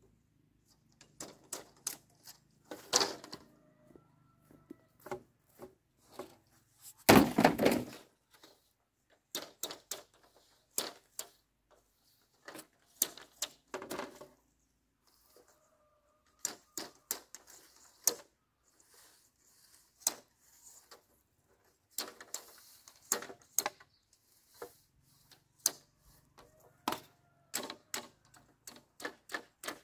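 Bamboo poles knocking and clacking together as they are lifted and worked by hand: irregular sharp knocks throughout, with a loud clatter lasting about a second some seven seconds in.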